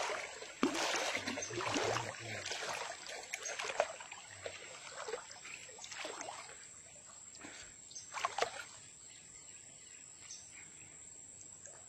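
Irregular water splashing and rustling as someone moves along a river, busiest in the first few seconds and then quieter, over a faint steady high hum of outdoor background.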